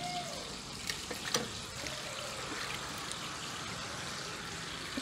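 Two light knocks about a second in, as a carrot is picked up from a metal tray of vegetables, over a steady background hiss.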